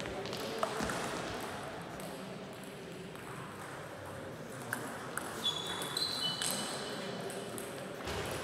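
Table tennis ball clicking off paddles and table in a short rally, the sharp hits clustered about five seconds in, with a few brief high squeaks and the reverberant clatter of play at other tables in the sports hall.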